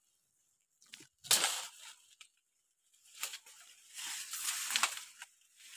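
Leaves and forest undergrowth rustling in a few short bursts as plants are brushed and handled, the longest from about four to five seconds in.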